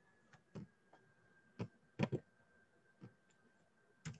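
Clicking at a computer as slides are advanced: about six short, sharp clicks at uneven intervals, while the slides are not changing over properly.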